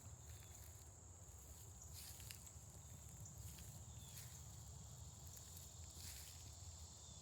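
Faint outdoor ambience: a steady high-pitched insect drone over a low rumble, with a few soft rustles and clicks.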